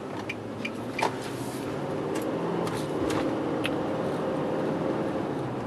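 Car cabin noise while driving: steady engine and road noise, getting a little louder over the first few seconds, with a few light clicks.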